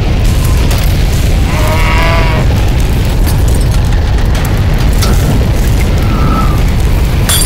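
Tornado wind: a loud, constant deep rumble with scattered crackles of debris, and a brief wavering howl about two seconds in.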